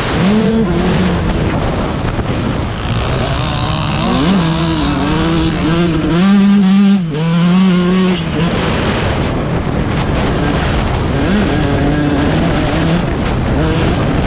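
Dirt bike engines in a motocross race, revving hard with the pitch rising and falling over and over as the throttle is worked, most busily between about 4 and 8 seconds in.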